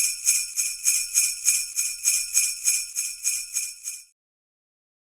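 Jingle bells shaken in a steady rhythm, about three jangles a second, growing a little fainter before stopping about four seconds in.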